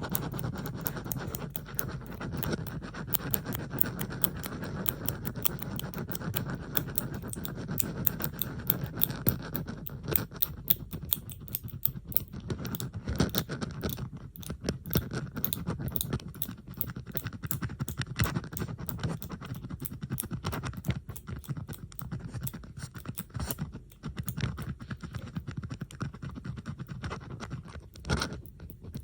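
Metal bobby pins handled close to the microphone, with several recordings layered together: a dense, continuous stream of small clicks and scratches.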